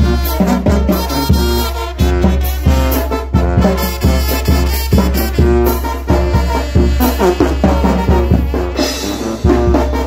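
Mexican brass band playing a chilena: trumpets and saxophone carry the melody over a sousaphone bass line, while the bass drum with its mounted cymbal and the timbales keep a steady, even beat.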